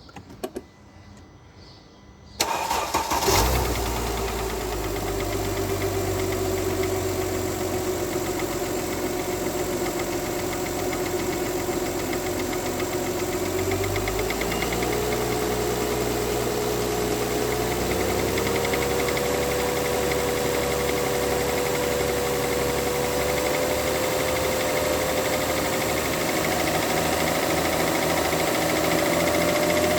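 Mercedes-Benz W211 E-Class 3.5-litre V6 engine cranking and catching about two and a half seconds in, then running steadily at idle, with a whining tone that rises slowly through the second half. This is an engine whose owner complains of knocking.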